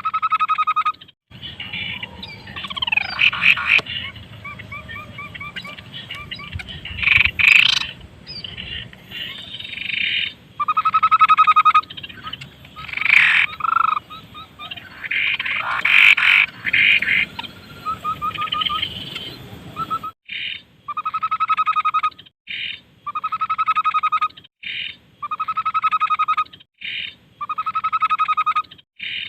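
Tepus babbler song: a mix of chirps, sweeping whistles and trills over a low hum. It then settles into a buzzy, pulsed note repeated about once a second for the last third.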